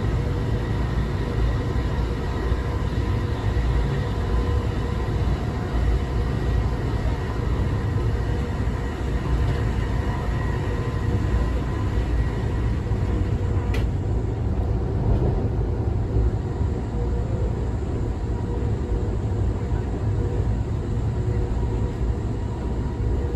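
Steady low rumble of wheels on rail heard inside a moving Amtrak Texas Eagle passenger car, with a faint steady hum over it and one brief click about fourteen seconds in.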